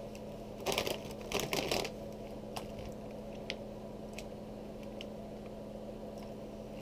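Plastic snack bag of Chester's fries crinkling in two short crackly bursts as it is picked up and handled, followed by a few faint clicks.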